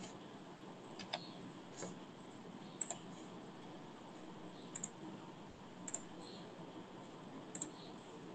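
Computer mouse clicking: scattered short clicks about a second apart, some as quick double clicks, over a faint steady room hum.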